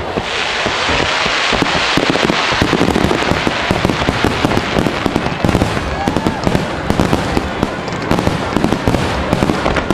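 Starmine fireworks barrage: many aerial shells bursting in rapid succession, a dense run of bangs, with a thick hiss over them in the first couple of seconds.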